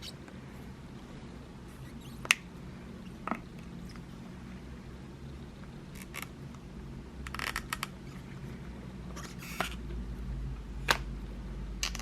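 Sharp clicks and taps of a smartphone and its plastic accessories being handled, four of them spread apart, with two short bursts of rustling, over a low steady hum.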